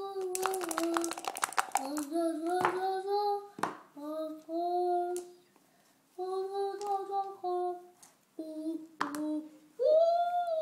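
A young child singing a tune in held notes, phrase after phrase with short pauses. Near the start, dice rattle quickly in a dice cup being shaken for about a second and a half.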